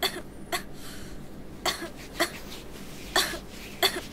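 A sick child coughing repeatedly: three pairs of short coughs.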